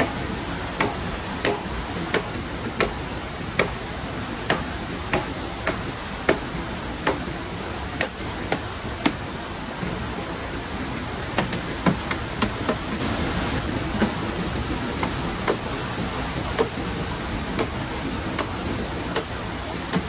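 Repeated sharp knocks of a tool chopping bamboo, about one to two a second with a short pause midway, over a steady hiss of water.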